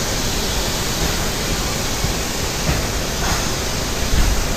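Steady rushing air noise of a gelcoat spray booth: a hose-fed spray gun laying gelcoat into a boat hull mold, along with the booth's ventilation airflow.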